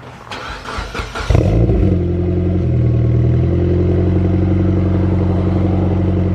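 Mitsubishi Lancer Evolution X's turbocharged 2.0-litre four-cylinder cranking on the starter and catching a little over a second in with a brief flare, then settling into a steady idle through its freshly fitted Borla cat-back exhaust.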